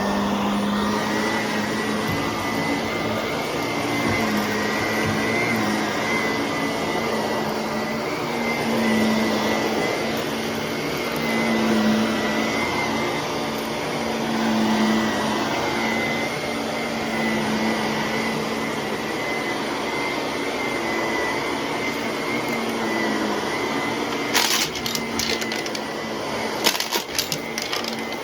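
Shark vacuum cleaner running steadily, a motor hum with a thin high whine, the level rising and falling gently. A few sharp clicks and rattles near the end.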